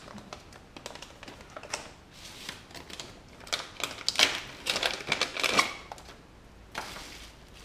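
Hands handling small parts and plastic packaging on a metal workbench: a run of light clicks and rustles, busiest about four to six seconds in, then quieter.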